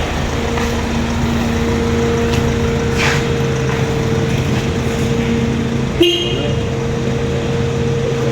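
A car engine idling steadily, with a brief horn toot about six seconds in.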